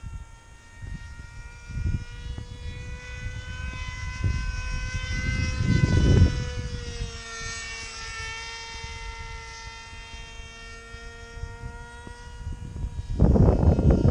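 Motor and propeller of a model flying wing whining steadily, its pitch shifting slightly with throttle. Wind buffets the microphone in gusts, hardest near the end.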